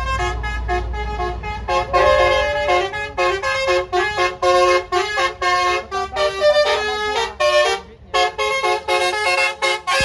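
A bus's musical air horn (basuri/telolet horn) playing a fast tune in short, choppy notes, with a brief pause about eight seconds in. A low engine rumble sits under the first second.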